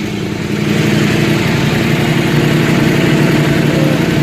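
KTM 790 Adventure R's parallel-twin engine idling steadily through a Sharon Rally 3/4 aftermarket exhaust with decat and spark arrestor, warm and just started; a throatier, louder note than stock.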